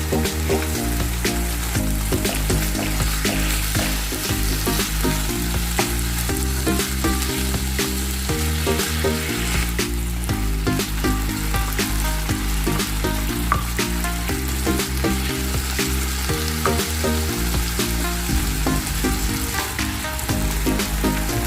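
Chicken pieces frying in hot olive oil in a pan, a steady sizzle with dense crackling. Background music with changing low notes plays underneath.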